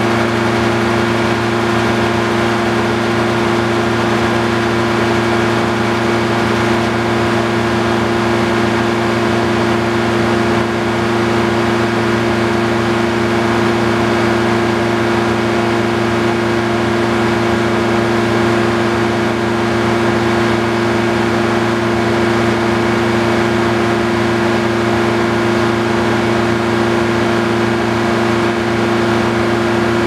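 Sawmill's power-unit engine running steadily at constant speed with an even hum, unloaded, with no cut under way.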